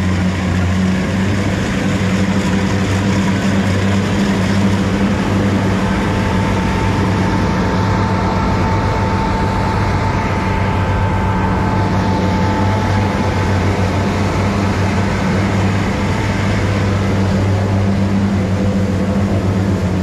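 Engine of a rice harvesting machine running steadily at a constant pitch. A faint higher whine comes in about six seconds in and fades out around twelve seconds.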